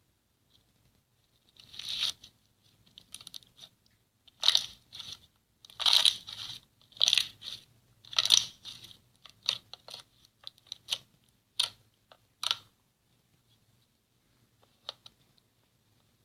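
Slime being pressed and squeezed: a dozen or so short crunches over about eleven seconds, then a few faint clicks.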